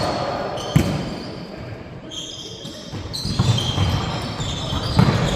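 Volleyball being struck during play: a sharp smack about a second in and another near the end, with short squeaks and players' voices in between.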